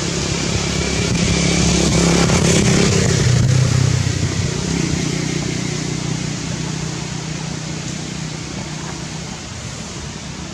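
A motor engine's steady hum, loudest about three seconds in and then slowly fading.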